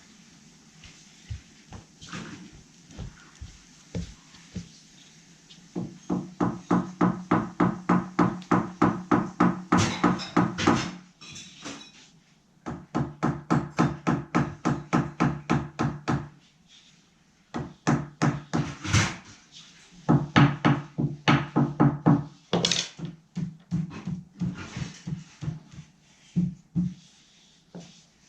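A hand tool scraping back and forth on a hard surface in quick, even strokes, about three a second, in several bouts of a few seconds with pauses and single knocks between them.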